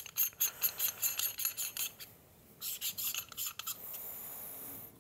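Metal screw threads of a 1ZPresso K-Plus hand grinder rasping as a part is twisted onto the grinder body, in a series of short scraping strokes with a brief pause about two seconds in.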